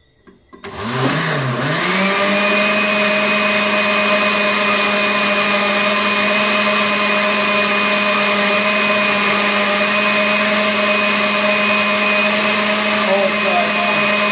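Countertop blender motor blending boiled Irish moss with water: it starts about half a second in, rises in pitch to full speed within a second or two, then runs at a steady, loud whine.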